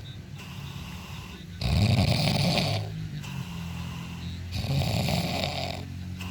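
Snoring in a steady rhythm: two loud snores, each lasting about a second and coming about three seconds apart, with quieter breathing between them.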